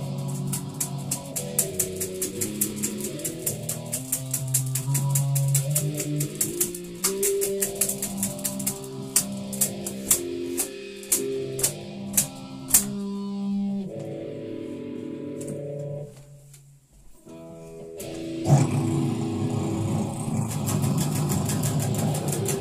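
Electric guitar playing a metal riff of picked notes in a fast, even rhythm. It drops out almost to nothing about two-thirds of the way in, then comes back in dense and loud.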